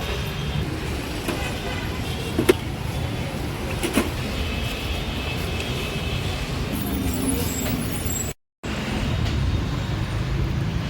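Road traffic noise: a steady low rumble of passing vehicles, with two sharp clicks about two and a half and four seconds in. The sound cuts out completely for a moment near the end.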